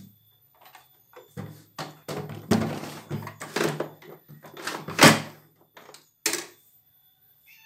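A string of irregular knocks and thumps from things being handled and set down, the loudest about five seconds in.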